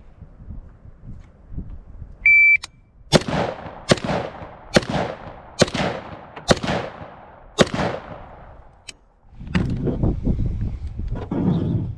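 A shot timer beeps once, high and short, then a firearm fires six shots at a steady pace of roughly one a second, each ringing out briefly.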